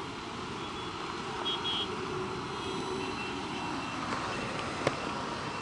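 Steady traffic and motorcycle road noise, an even rumble and hiss, with a brief faint high beep about one and a half seconds in and a single click near the end.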